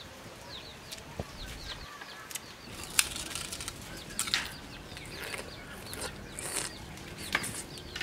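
Sharp cracks and crunches of fresh sugarcane being bitten and chewed, the loudest about three seconds in, with others around four and seven seconds. Under them are many short high bird chirps.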